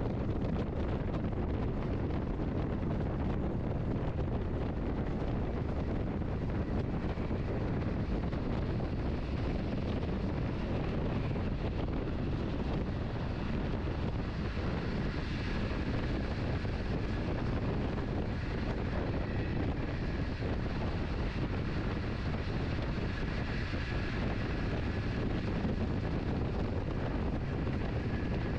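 Lucerne–Engelberg Express train running at steady speed, heard from inside the carriage as an even low rumble of wheels and track, with a faint high whine joining about halfway through.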